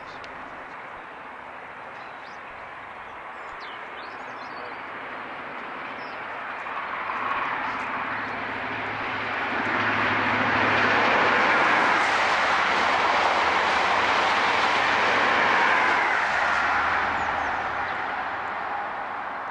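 High Speed Train (InterCity 125) diesel passenger train passing: the rush of wheels on the rails, with a low engine hum, builds from about a third of the way in, is loudest through the middle and fades toward the end. A few faint bird chirps near the start.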